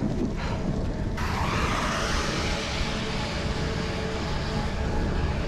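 Wind buffeting and rushing over the microphone while cycling into a headwind, with the rushing growing broader and brighter about a second in.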